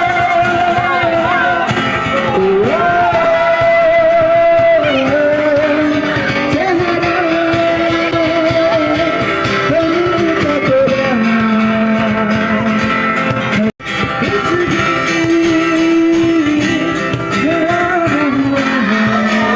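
Music: a singing voice over guitar, with a momentary break about two-thirds of the way through.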